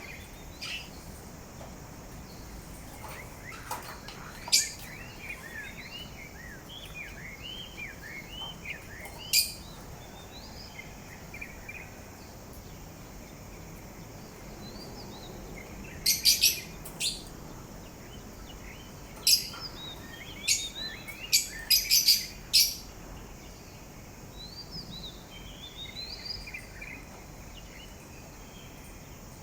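Parrot singing softly in a run of quiet chirps and warbles, broken by sharp, loud calls: one or two early on, then a quick cluster after the middle.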